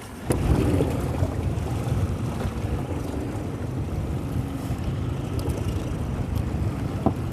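Wind buffeting the microphone aboard an open fishing boat: a steady low rumble that sets in suddenly just after the start.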